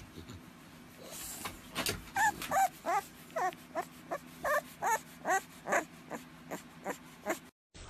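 English bulldog whimpering: about a dozen short, high-pitched whining cries in quick succession, starting about two seconds in and cut off near the end.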